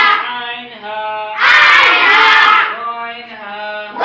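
Call-and-response Quran reading drill: one voice holds a chanted line, then a loud chorus of boys' voices answers in unison about a second and a half in, and the single voice chants again near the end. They are drilling the Arabic letters with their vowel marks and the nun sakin rule.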